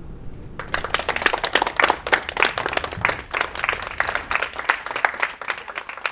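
A small audience applauding, dense hand-claps starting about half a second in.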